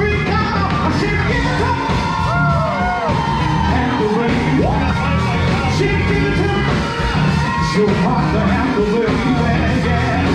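Music with a singing voice and yells over a steady bass line.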